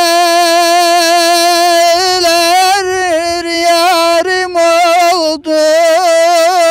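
A man singing an unaccompanied Turkish uzun hava folk song: one long held note, then a wavering, ornamented melody, with a short breath about five seconds in.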